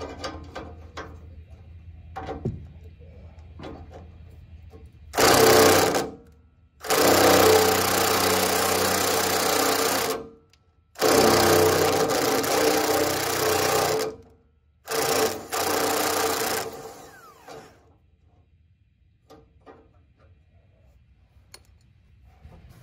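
Cordless power drill running in five bursts of up to about three seconds each, backing out fasteners to free a metal tank cradle, with faint clinks of handling before and after.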